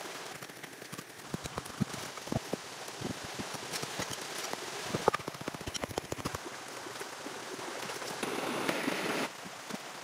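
Rain falling steadily, with many separate drops striking close by. It grows denser and louder for about a second near the end.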